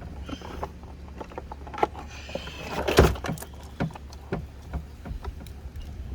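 Plastic door trim panel and its wiring being handled: scattered clicks, knocks and brief rustling scrapes, with one louder knock about three seconds in, over a steady low rumble.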